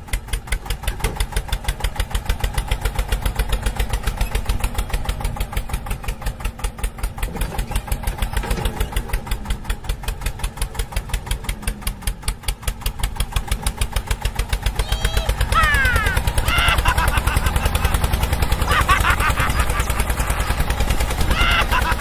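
A small engine running with a fast, even putter of about ten beats a second, getting louder about fifteen seconds in. Short high chirps sound over it near the end.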